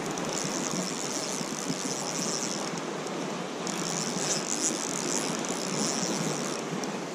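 River current rushing steadily, with a high hiss laid over it for most of the time, breaking off briefly about three seconds in and again near the end.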